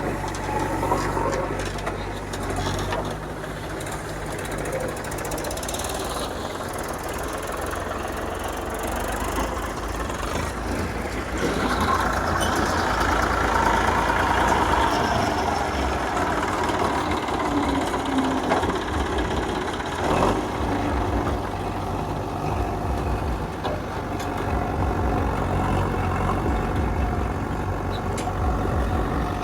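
Heavy diesel engines of a backhoe loader and tractors running, with a low steady engine note that grows louder and busier for a few seconds around the middle.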